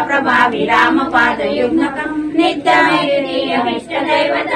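Group of female voices singing a devotional aarti together, with a few sharp high strikes in the first second or so.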